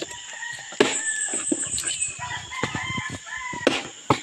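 A rooster crowing over a steady high insect drone, with a few sharp knocks about a second in and near the end.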